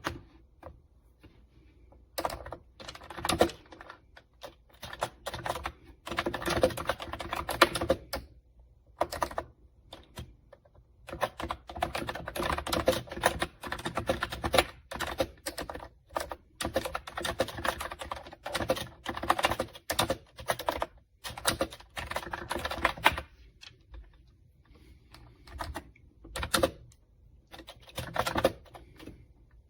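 Kootop retro typewriter-style wireless keyboard with round keys being typed on: quick runs of key clicks broken by short pauses.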